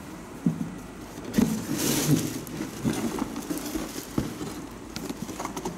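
Cardboard shoe box being handled as its lid is lifted open: light knocks and taps, with a short rubbing scrape of cardboard about two seconds in.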